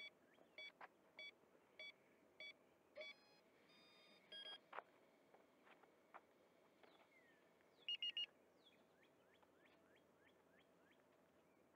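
Faint electronic status beeps from the FW200 micro helicopter sitting on the ground before takeoff: short beeps about every half second, a few longer tones, then a louder quick triple beep about eight seconds in. Faint bird chirps follow near the end.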